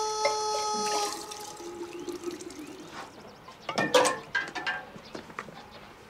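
Dark liquid pouring from a bamboo spout into a glass jug, a steady splashing hiss with a faint tone that rises as the jug fills. A couple of sharp knocks come about four seconds in as the jug is handled.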